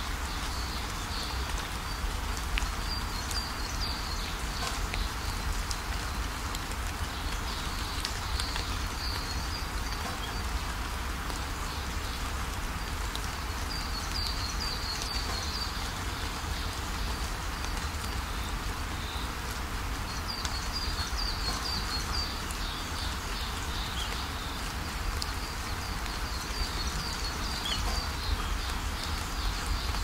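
A rain-and-birdsong ambience recording: steady rain falling, with birds giving short runs of high chirps every few seconds.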